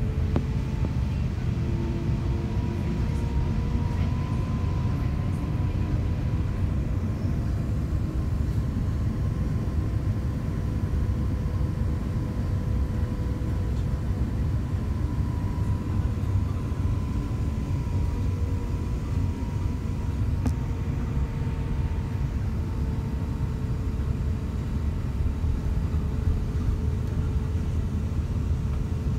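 Airbus A350-941's Rolls-Royce Trent XWB-84 engines running at low taxi thrust, heard inside the cabin as a steady low rumble with a faint whine on top.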